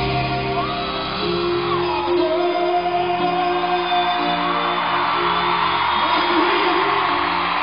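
Live rock concert heard from the audience: a male singer holding long notes over a full band, with the crowd whooping and cheering, the cheering growing in the second half.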